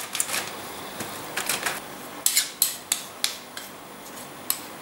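Metal spoon scraping and clinking against a foil-lined aluminium pan as sticky crumb mixture is pressed flat, with the aluminium foil crinkling, in short irregular scrapes.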